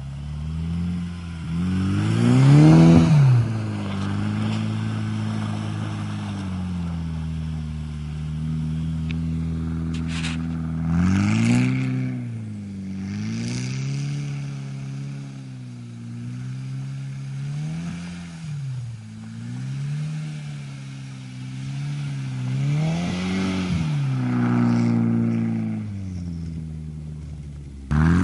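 Plymouth Laser AWD turbo's turbocharged four-cylinder engine revving up and falling back again and again as the car drifts on snow, its pitch swelling and dropping every few seconds. The highest, loudest rev comes about three seconds in.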